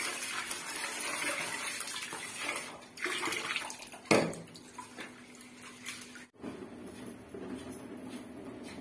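Tap water running into an aluminium pot of basmati rice as it is washed and swirled by hand, with one sharp knock about four seconds in. The water sound stops suddenly about two-thirds of the way through.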